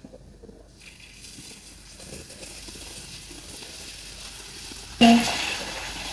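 Eggs frying in a pan with sweet soy sauce, a hissing sizzle that grows steadily louder. About five seconds in there is a sudden, much louder burst that fades slowly.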